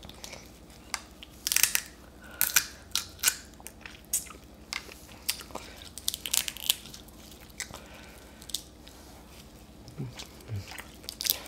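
Stir-fried crab being eaten by hand: irregular sharp cracks and crunches of crab shell, with chewing.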